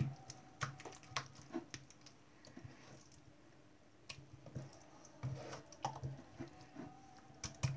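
Hands squeezing, pressing and pulling runny PVA-gel and borax slime on a tabletop, making irregular wet, sticky clicks and smacks.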